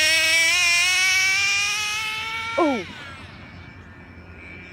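Traxxas Jato RC truck's nitro engine screaming at high revs, pitch climbing steadily as it accelerates. About two and a half seconds in the pitch drops sharply and the sound fades away.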